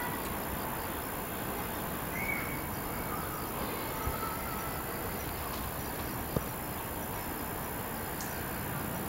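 Steady outdoor background noise, with two faint brief high tones a couple of seconds in and a single sharp click about six seconds in.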